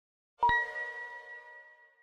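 A bell-like chime sound effect for an animated logo: one sharp strike about half a second in, ringing with several pitches and fading away over about a second and a half.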